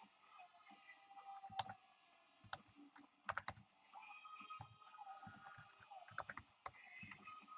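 Computer keyboard typing, faint: scattered key clicks with a couple of quick runs of keystrokes.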